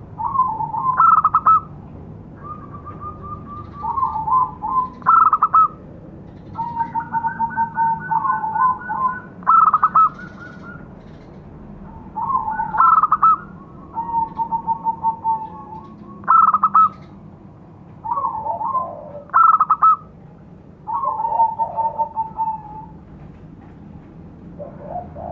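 Zebra dove (perkutut) singing its cooing song: phrases of fast staccato coos and short trilled notes, repeated every two to three seconds.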